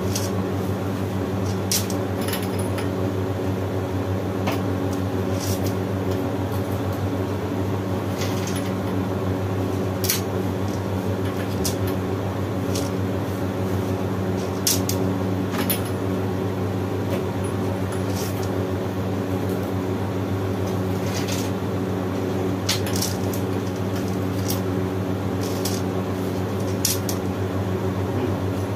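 Steady low mechanical hum that does not change, with a dozen or so scattered sharp clicks and taps over it.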